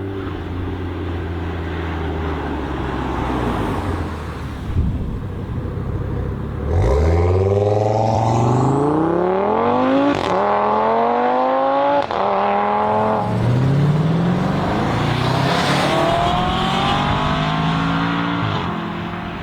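Supercar engine running at low revs, then about seven seconds in accelerating hard, its pitch climbing steeply with two quick upshifts before pulling up through the revs again.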